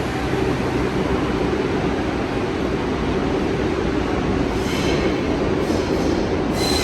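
New York City subway train arriving in the station, a steady rumble of wheels on rail. High-pitched wheel squeal comes in about two-thirds of the way through.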